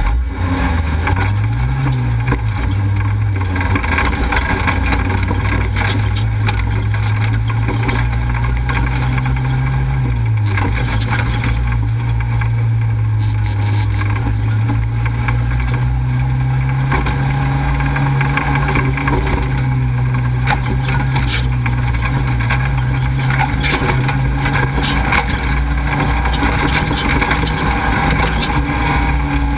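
Off-road race vehicle's engine running under load on a dirt course, its pitch rising and dipping a few times with throttle and shifts. Steady road and wind noise runs underneath, with scattered rattles and ticks.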